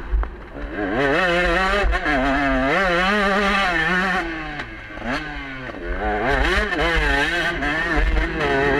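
KTM 125 two-stroke enduro motorcycle engine, heard from on board, revving up and dropping again and again as the rider works the throttle and gears over rough dirt. There is a sharp fall in pitch a little past halfway before it climbs again, with wind buffeting on the microphone.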